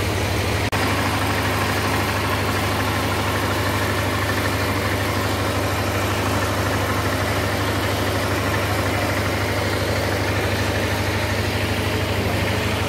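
Small engine-driven water pump running steadily, a constant low drone with an even firing rhythm, pumping the pond out through hoses.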